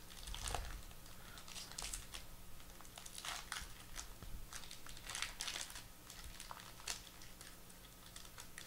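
Foil wrapper of a trading card pack crinkling in scattered, irregular crackles as it is peeled open and the cards are slid out.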